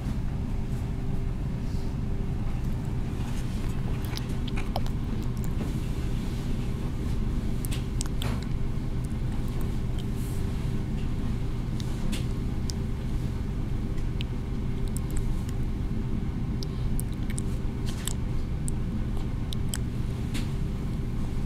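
Steady low rumble with a hum, and scattered small clicks over it.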